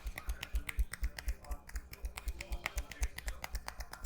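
Rapid, even tapping of a barber's hands on a customer's head during a head massage, about six or seven sharp taps a second.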